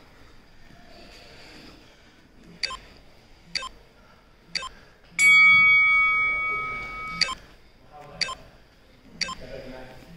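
Gym round timer: short electronic beeps about once a second, and about five seconds in a louder bell-like tone that rings and fades over about two seconds while the beeps carry on.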